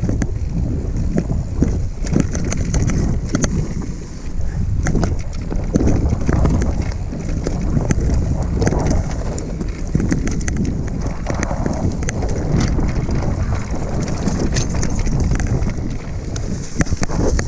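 Mountain bike riding down a dirt singletrack, heard from a camera on the rider: steady wind buffeting on the microphone over the rumble of tyres on the ground, with frequent sharp clicks and rattles from the bike.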